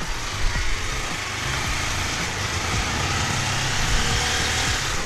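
Motorcycle engine running at low speed while riding along a street, with wind and road noise rushing over the microphone and a few short knocks in the first second.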